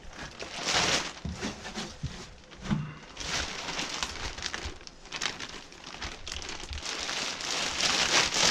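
Rustling, crinkling and scraping of trash and debris being moved about, swelling louder three times.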